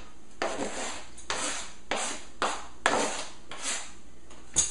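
Knife blade scraping chopped food off a plastic cutting board: about seven rasping swipes, roughly two a second.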